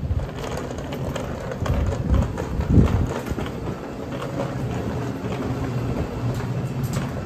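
Rumble and rattling of a moving vehicle, with a cluster of louder knocks about two to three seconds in.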